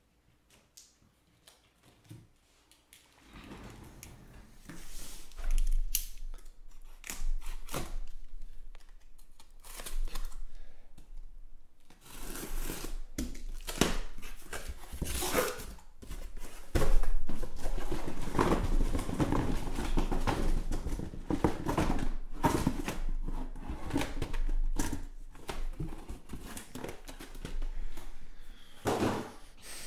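Cardboard shipping case being opened by hand: the taped seam slit and torn, the flaps handled, and the boxes inside slid out and set down on the table. It comes as an irregular run of scrapes, rustles and knocks, starting about three seconds in and growing busier and louder about halfway through.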